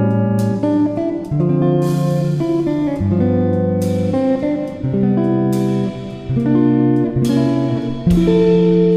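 Background music: plucked guitar playing a slow melody over held chords.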